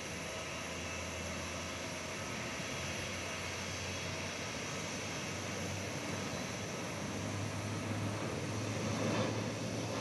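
Airbus A320's jet engines running at low power as the airliner taxis, a steady rush with a low hum, growing a little louder near the end.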